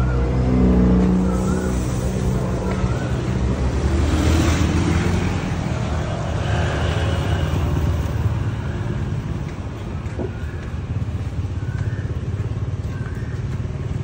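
Street traffic: car and motorbike engines running close by on the road, with a louder vehicle passing about four seconds in.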